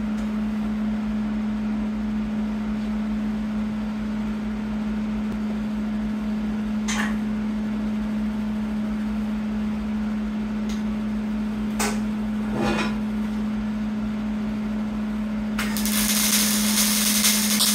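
A steady low hum with a few scattered clicks, then about two seconds before the end a Hobart Handler 210MVP MIG welder strikes an arc and a loud, even welding hiss and crackle starts. The welder is turned down to about half its voltage and wire speed on 1/8-inch steel angle iron.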